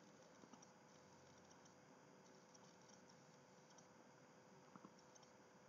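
Near silence: faint room hiss with a few faint clicks, about half a second in and near the end.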